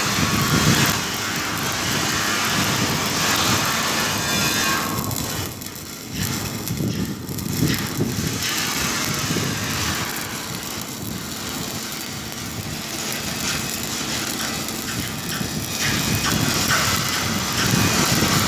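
Stick-welding (SMAW) arc crackling steadily as an electrode runs a horizontal (2G) weld along a steel tank seam, with a low rumble underneath. The crackle thins out for a moment about six seconds in, then carries on.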